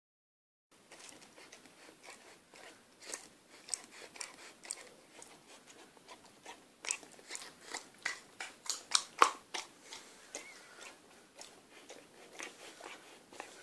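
Six-month-old Akita puppy chewing at a sticky toffee gumming up her mouth: a rapid, irregular run of sharp smacks and clicks of jaws and tongue. It starts after a brief silent gap and grows busiest and loudest in the middle.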